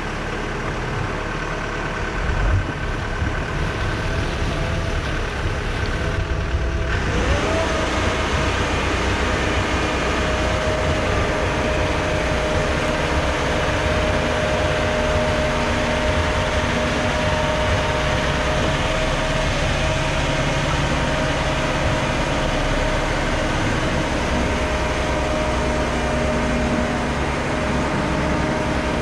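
Engines running steadily. A deeper engine rumble comes in with a knock about two and a half seconds in, and a steady whine rises and settles about seven seconds in.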